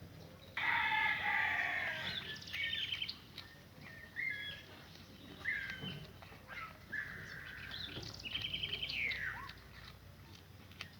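Loud animal calls: a sudden falling squawk about half a second in, then a string of short chirps, quick trills and gliding calls, with a longer warbling call near the end.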